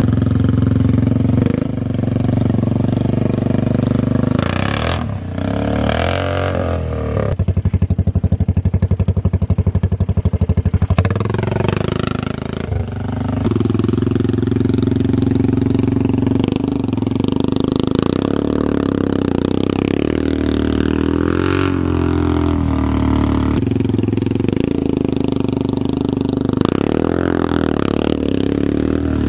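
Honda four-wheeler engine running hard and revving while towing a kayak through a pond and across grass, its pitch rising and falling with the throttle several times, with a stretch of fast, even pulsing about a third of the way in.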